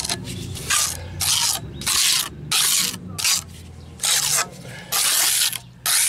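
Trowel and gloved hand scraping and rubbing rapid-set cement patch into pits in a concrete step, in a series of short strokes about half a second each.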